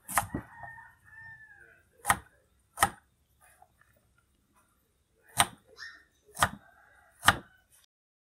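Crinkle-cut knife chopping beetroot on a round wooden chopping board: six sharp knocks at uneven intervals.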